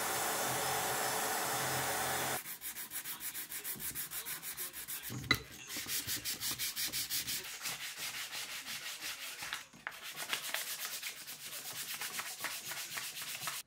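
A compressed-air tool hisses steadily for about two seconds. Then a hand wire brush scrubs rust off the cast-iron vice in fast back-and-forth strokes, about four a second, with a single sharp knock about five seconds in.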